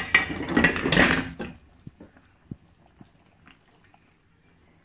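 A pan of chicken curry, just uncovered, bubbling and sizzling loudly for about a second and a half, then three faint knocks of a spoon in the pan.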